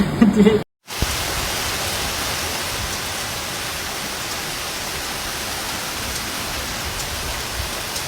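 Heavy rain pouring down in a steady, even hiss, starting just after a brief cut about a second in.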